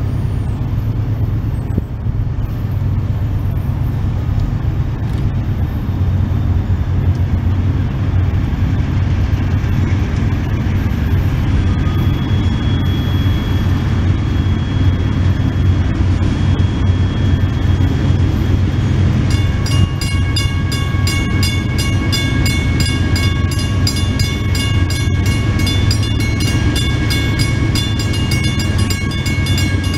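Diesel freight locomotives running with a steady low engine rumble. About two-thirds of the way in, a bell starts ringing in quick, even strokes over the engines.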